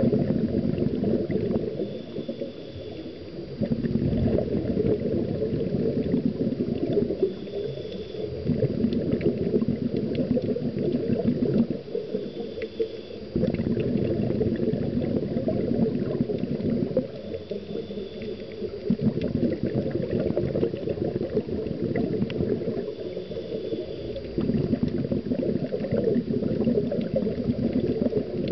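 Scuba diver's regulator breathing underwater, recorded through the camera housing. Exhaled air bubbles out in long low gurgling stretches of several seconds, alternating with short, faint, high hissing inhalations about every five seconds.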